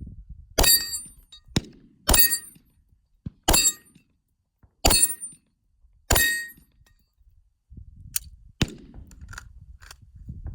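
Glock 34 9mm pistol firing slow, deliberate single shots, five of them about a second and a half apart, each followed by a short ring. A fainter sharp click comes about eight and a half seconds in, then low rustling.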